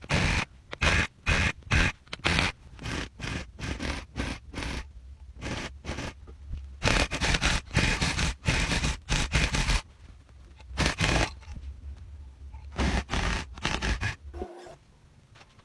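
Quick, short scraping strokes against a rug's yarn or backing, about two to three a second, with a quieter pause a little after the middle.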